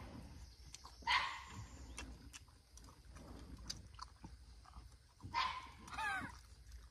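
A dog faintly yelping twice, once about a second in and again near the end, with a few light clicks in between.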